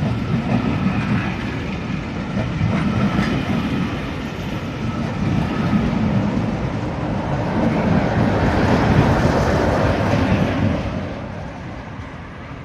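Departing Class 47-hauled passenger train rolling past, its wheels clicking over the rail joints. The noise swells about eight seconds in and fades from about eleven seconds as the train pulls away.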